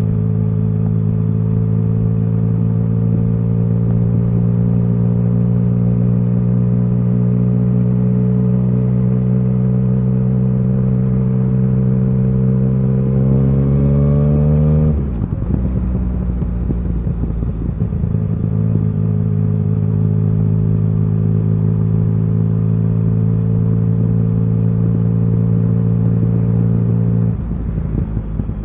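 Yamaha XSR900's inline three-cylinder engine running under way. Its pitch climbs gradually about a third of the way in, then falls abruptly about halfway through, holds steady, and dips briefly again near the end.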